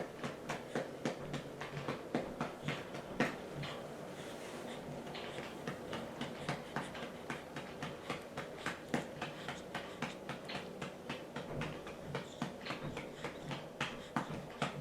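Light pats on a baby's back while he is burped over a shoulder, a few pats a second at uneven spacing, over a steady low hum.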